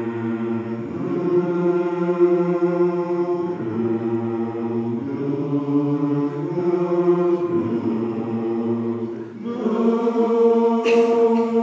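Men's barbershop chorus singing a warmup of sustained chords, changing about every one to two seconds, with a short break for breath about nine seconds in.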